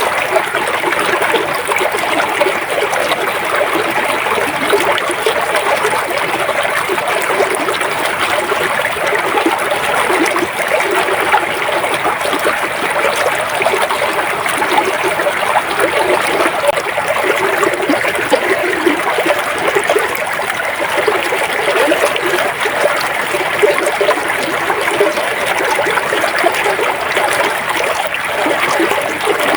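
A river or stream flowing steadily, its water trickling and splashing over rocks.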